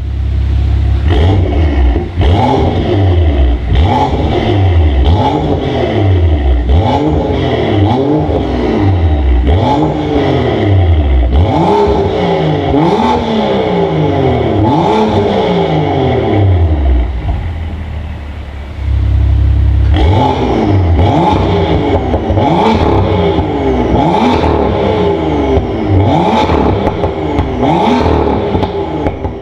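BMW M2's turbocharged N55 straight-six through a Supersprint exhaust, blipped over and over with each rev rising and falling in about a second, with a short lull a little past the middle before the revving resumes.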